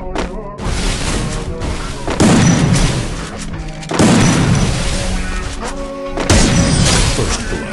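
Music with heavy booming hits about every two seconds over a sustained melody.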